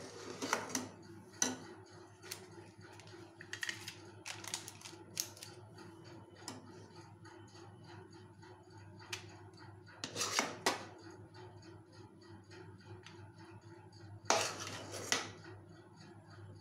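A metal spoon scraping and knocking against a metal pan while scooping out thick fudge mixture, in four short clusters of scrapes and taps separated by quieter pauses. A faint steady hum lies underneath.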